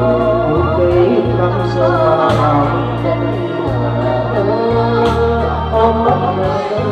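A woman singing a Vietnamese song into a handheld microphone over an electronic-organ backing track with a steady bass line that changes note about once a second.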